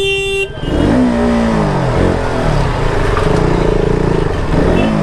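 A vehicle horn blares and stops about half a second in; then a motorcycle engine revs up and falls back in slow traffic, rising again near the end.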